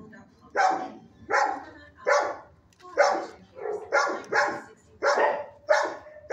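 Shelter dogs in neighbouring kennels barking over and over, a sharp bark every half second or so with no let-up.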